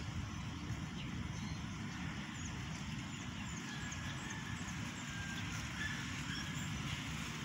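Wind rumbling steadily on the microphone, with faint, short bird chirps here and there.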